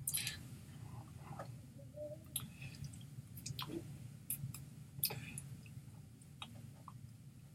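Scattered soft clicks and wet smacks from a person signing in sign language: hands meeting and lip and tongue noises, over a steady low electrical hum.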